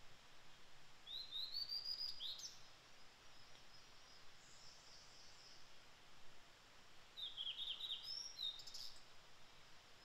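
Blue-and-white flycatcher singing: two phrases of clear whistled notes, the first about a second in and the second about seven seconds in.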